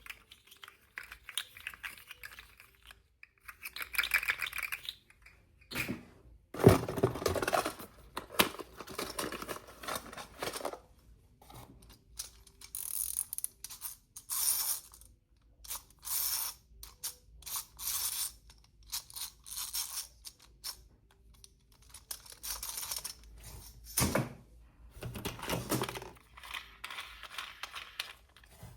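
Toys being unpacked by hand: irregular rustling and crinkling of packaging mixed with small clicks and rattles, in uneven bursts with short pauses between.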